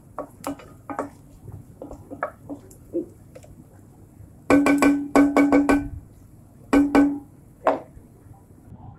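Wooden spoon stirring chopped onions in an enameled cast-iron pot, with scattered scraping clicks. About halfway through, the spoon knocks on the pot in a quick run of about six ringing raps, then two more and a single one near the end.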